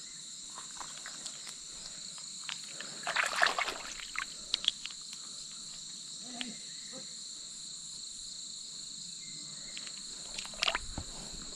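Steady high-pitched chorus of insects such as crickets, a constant shrill drone sitting in two pitches. A few brief, louder noises cut in, the most prominent about three seconds in and another near the end.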